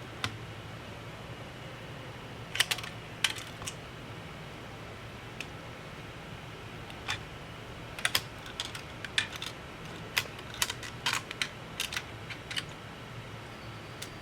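Irregular light clicks and taps of small tools and laptop parts being handled, some in quick clusters, over a faint steady low hum.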